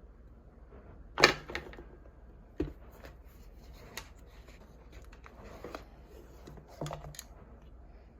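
A few short, sharp clicks and knocks with faint rustling between them, the loudest about a second in and a close pair near the end.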